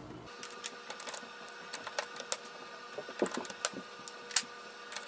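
Plastic ink cartridges being pressed into the print-head carriage of an Epson XP-970 printer: a series of irregular clicks and snaps as each one locks into place, over a faint steady hum.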